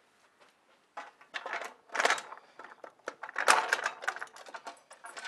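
Light metallic clicks and rattles as a lock cylinder, keys hanging in it, is worked into the lock of an aluminium security gate. They start about a second in and come irregularly, with the loudest clatters about two and three and a half seconds in.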